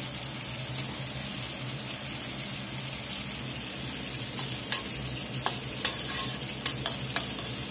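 Wine-based braising liquid with mushrooms and vegetables simmering and sizzling steadily in a stainless steel stockpot. From about halfway, a utensil stirs in tomato paste, with light clicks and scrapes against the pot.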